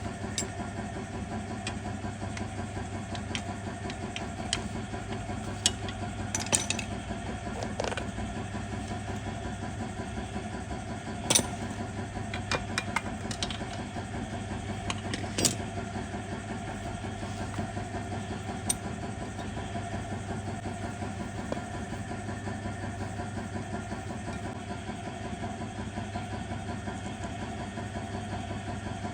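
An engine idling steadily, with a few sharp clicks and knocks scattered through it.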